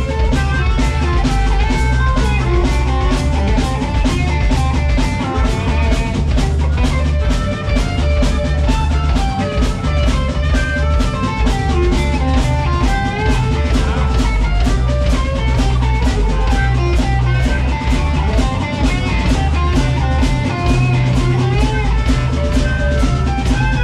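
Live blues band playing, with electric guitar over a drum kit keeping a steady beat.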